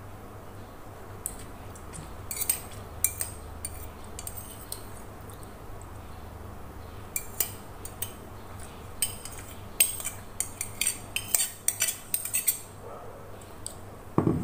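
Metal spoon scraping and clinking on a ceramic plate as rice is scooped up, in scattered runs of sharp clicks, sparse early and busier in the second half. A steady low hum runs underneath.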